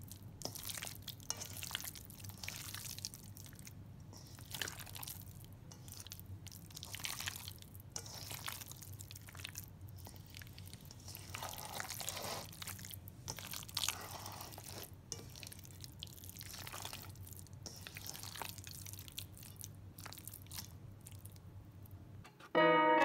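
Gloved hand squishing and turning raw chicken pieces in a wet marinade in a stainless steel bowl: irregular wet squelches and slaps over a low steady hum. Louder music with a ticking beat cuts in abruptly near the end.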